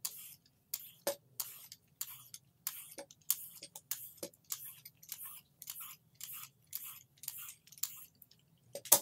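Vegetable peeler scraping strips of skin off a cucumber, one short stroke about three times a second, with a sharper knock near the end.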